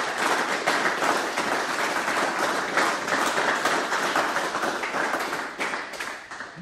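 Crowd of people applauding, a dense steady patter of many hands clapping that dies away near the end.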